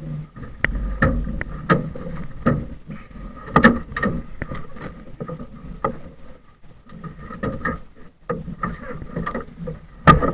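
Water slapping against the side of a riveted metal boat hull in irregular knocks, the strongest about three and a half seconds in and near the end, over a faint steady whine.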